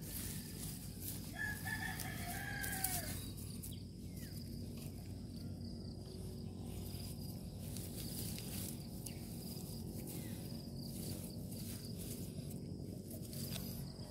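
A rooster crows once, a single call of about two seconds that rises and falls, beginning about a second in, over a steady low background rumble.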